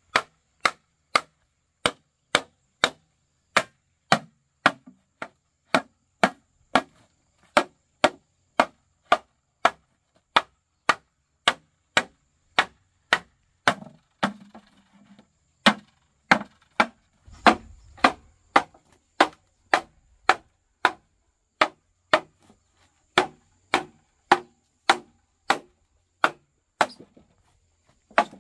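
Steady chopping with a blade, sharp strokes at about two a second, evenly paced, with a short pause about halfway.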